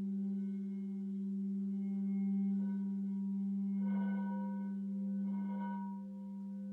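Frosted quartz crystal singing bowls sounding a deep, steady hum with a fainter, higher tone that pulses slowly. Three brief, soft swishing sounds come and go over it.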